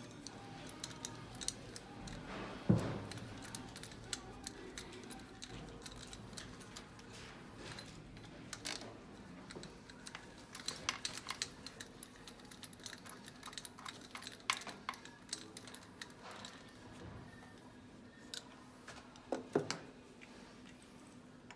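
Scattered light metallic clicks and taps of hand tools and a compression-tester fitting being worked on a diesel engine's cylinder head. There is a sharper knock about three seconds in and a few more knocks near the end.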